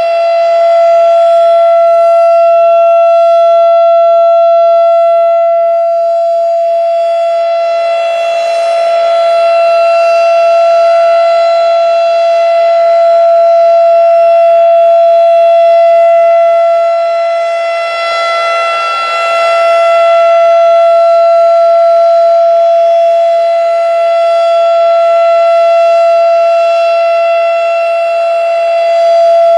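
Federal Signal RSH-10 Thunderbeam three-phase outdoor warning siren sounding a loud steady tone at one fixed pitch. Its volume swells and fades every several seconds as the rotating horn sweeps past.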